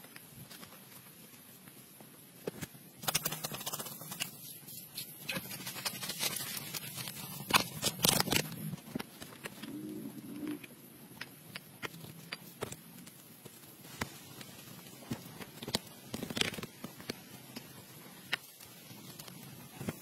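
Hands working loose soil around wooden sticks: scraping and crumbling earth with light knocks of wood, in scattered clicks and two louder scraping stretches about three and eight seconds in.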